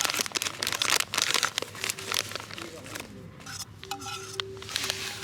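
Crinkling and rustling of packaging being handled close up, a rapid run of irregular crackles.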